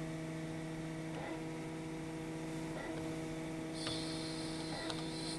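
Harig EZ-Surf surface grinder running, with a steady motor hum from its hydraulic pump and spindle. The hum dips briefly about every one and a half to two seconds, and a faint high whine joins in near the end.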